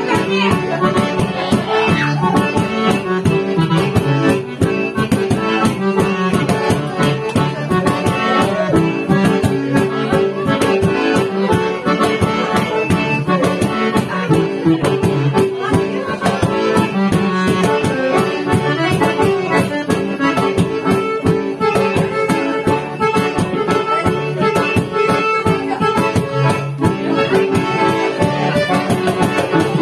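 Accordion playing a lively tune over a fast, steady percussion beat.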